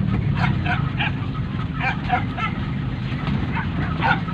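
Hunting dogs barking and yelping in quick clusters of short calls, over the low steady hum of a car engine heard from inside the cabin.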